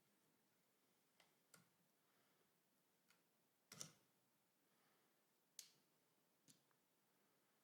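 Faint, scattered metallic clicks, six in all, the loudest a little before the midpoint: snap-ring pliers working against a Mauser K98k's front sight hood as the hood is worked off the barrel.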